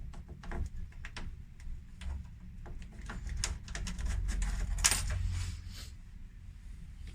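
Irregular small clicks, taps and light metallic clinks of hands handling tools and a short piece of rubber pipe, with one sharper knock about five seconds in.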